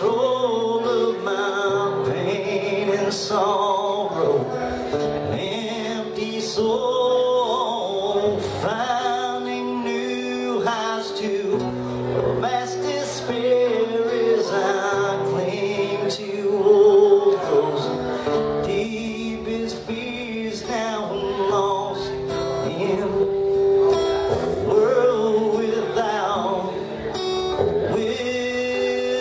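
A man singing while strumming an acoustic guitar, performed live through a microphone and PA.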